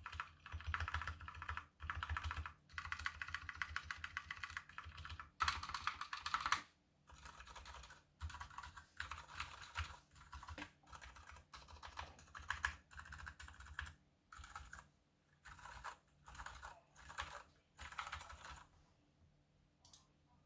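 Typing on a KBD75 mechanical keyboard fitted with unlubed Gateron Silent Brown switches, a brass plate and PBT DSA keycaps: fast runs of keystrokes in bursts with short pauses between them, stopping near the end.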